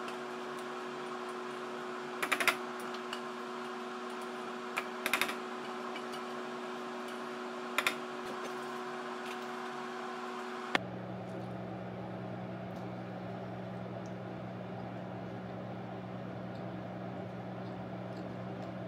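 Short clinks and taps of metal utensils against a stainless steel saucepan and a plate, a few at a time, over a steady background hum. About eleven seconds in, the clinks stop and the hum changes suddenly to a lower one.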